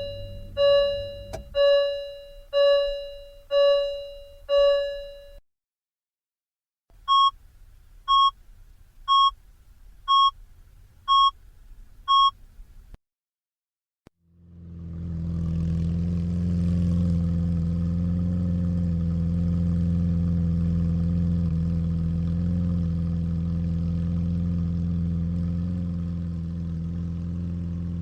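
A car's warning chimes sound: six slow, lower chimes, then six short, higher beeps. About fourteen seconds in, the car engine starts and settles into a steady idle.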